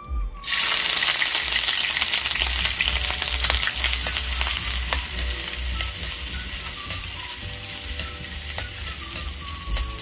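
Sliced ginger sizzling as it hits hot cooking oil in a wok, starting about half a second in, loudest at first and easing a little. A metal spatula taps and scrapes the pan as the ginger is stirred.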